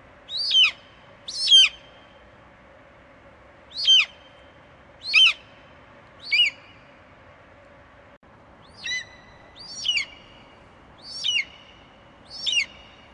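An eagle calling: nine short, high, piercing cries, each sliding quickly down in pitch, spaced about a second apart in three bunches with short pauses between. A faint steady hum and hiss lie under them.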